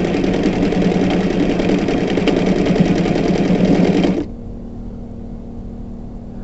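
Old electric sewing machine running at speed, its needle stitching through thick fabric with a rapid, even rhythm, then stopping abruptly about four seconds in.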